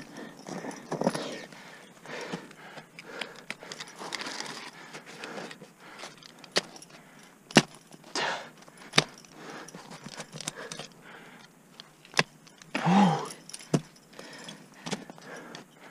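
Ice-climbing tools biting into waterfall ice, with sharp strikes of the picks and crampons several times and ice chips scraping and spraying between them. Metal climbing hardware jingles on the harness, and there is a brief grunt about thirteen seconds in.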